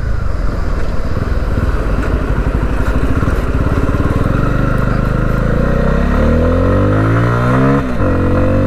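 Bajaj Pulsar F250's single-cylinder engine pulling under way, heard from the saddle. Its pitch climbs for a couple of seconds, drops sharply at a gear change near the end, then starts climbing again.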